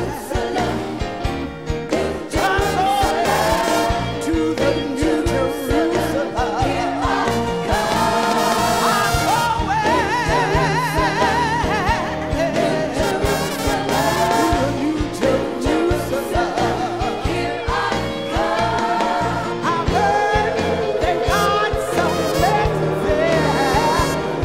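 A live gospel song. A woman lead singer sings with wide vibrato over a band whose bass and drums keep a steady beat.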